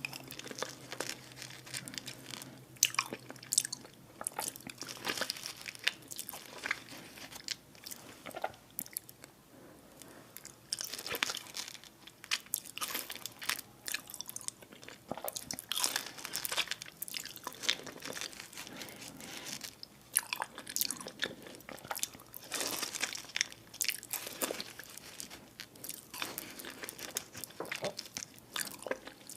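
Close-miked eating: biting and chewing, with irregular sharp crunches and crackles.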